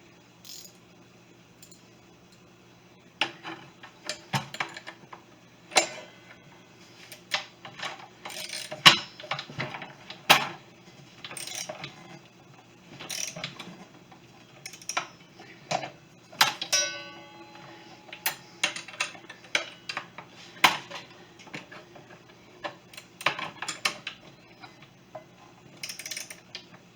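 Irregular metal clicks and clanks of a wrench working the arbor bolt on a miter saw, tightening the blade down. They begin a few seconds in, and there is one short metallic ring about two-thirds of the way through.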